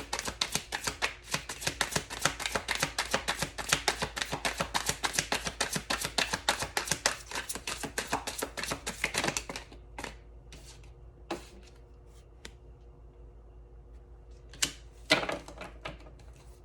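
A tarot deck being shuffled by hand, a fast run of card clicks that stops about nine seconds in, followed by a few scattered taps and snaps as cards are handled and drawn.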